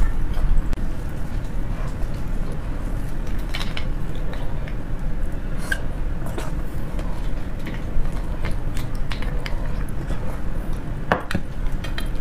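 Eating sounds: scattered sharp clicks of a metal spoon and soft mouth noises as braised beef bone marrow is scooped and eaten, over a steady low rumble.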